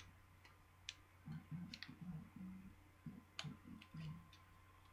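Faint, scattered clicks from a plastic pry tool working along the seam of an HTC Raider smartphone's housing, prying at the clips that hold it together, with low rubbing from the handling between the clicks.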